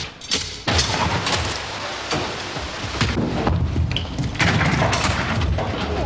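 Industrial clatter from block-ice handling: repeated heavy knocks and thuds over a low rumble as metal ice moulds are lifted and emptied of their blocks.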